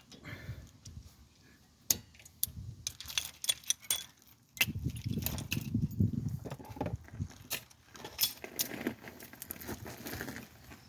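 Small metal parts and tools clinking and rattling during brake work, with many sharp clicks. A duller rumble of handling noise joins in from about halfway.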